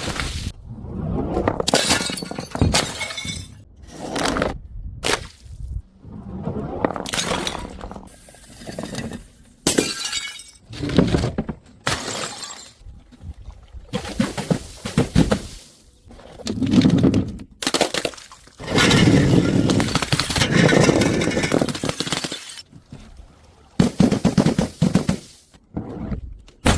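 Glass bottles smashing one after another: about a dozen separate crashes, each starting suddenly and dying away within a second or two.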